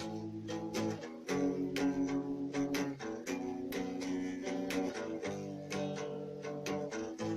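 Guitar music: plucked chords ringing out, changing about every second or two.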